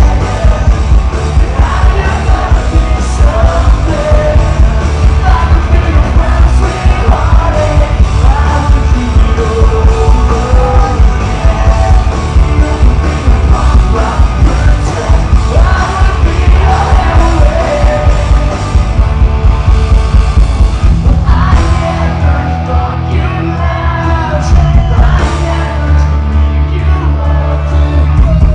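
A rock band playing live, with lead vocals over piano, electric guitars, bass and drums, recorded loud from within the crowd. About three quarters of the way in, the band drops back to a sparser passage of held bass notes under the singing.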